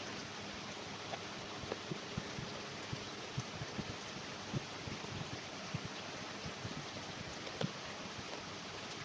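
Steady hiss with scattered light taps and clicks, a few a second and irregular, from a shoe and tools being handled on a workbench as sole-replacement work begins.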